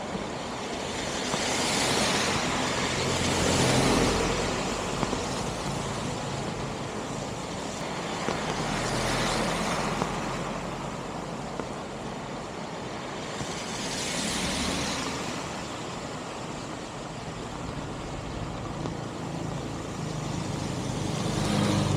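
Road traffic passing: a steady hiss of tyre and engine noise that swells and fades three times as vehicles go by.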